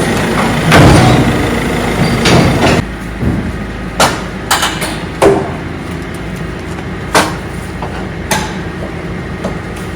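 A loud rumbling noise for about three seconds, then a quieter steady hum broken by about six sharp, hard knocks at irregular intervals.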